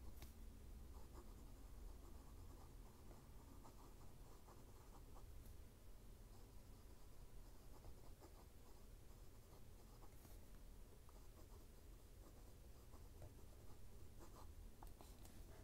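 Faint scratching of a fine-nibbed Montblanc Writer's Edition Homage to Rudyard Kipling fountain pen writing cursive on paper: many small, quick strokes.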